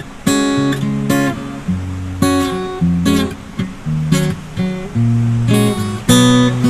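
Background music: acoustic guitar strumming and picking chords at a steady, relaxed pace.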